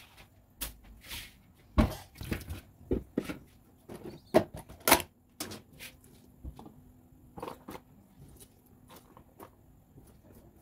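Irregular knocks and clacks of kitchen items being handled during food prep, three sharp loud ones in the first half, then quieter taps.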